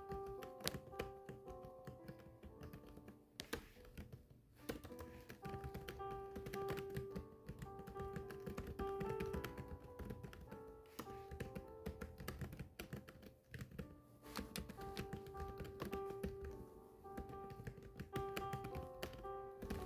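Continuous typing: keys clicking rapidly and unevenly, over soft background music with held melodic notes.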